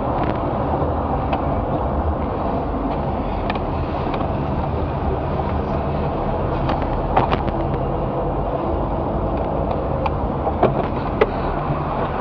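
Steady road and engine noise of a moving car, with a few sharp clicks about seven seconds in and twice more near the end.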